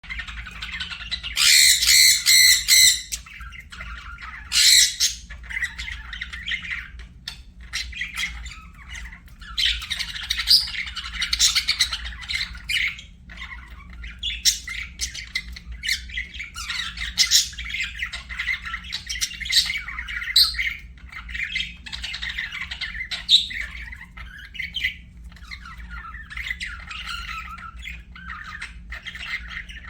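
Budgerigars chirping and chattering continuously, with loud harsh squawks from about one and a half to three seconds in and again around five seconds. A steady low hum runs underneath.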